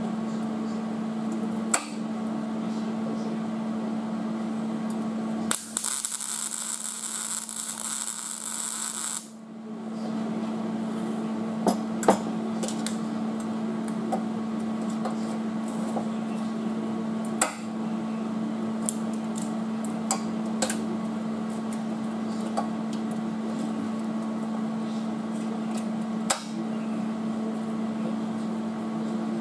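Steady electrical hum, with a few sharp clicks and knocks of tools being handled. About five and a half seconds in there is a loud even hiss that lasts about three and a half seconds and cuts off suddenly.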